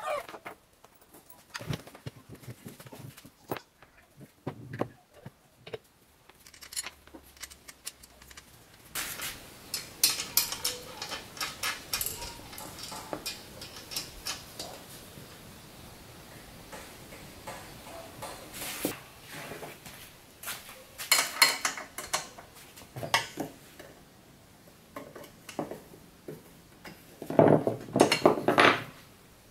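Plastic wheels and their metal fittings being fitted by hand to the steel tank of an oilless air compressor: scattered clicks, knocks and clattering, in a few busier clusters.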